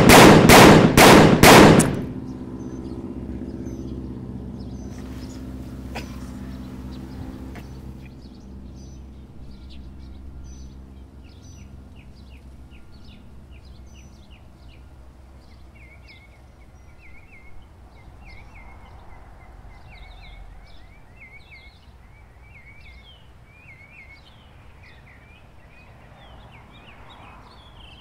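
A rapid volley of gunshots, several in under two seconds, then a low drone that fades out over the next few seconds, leaving small birds chirping over and over.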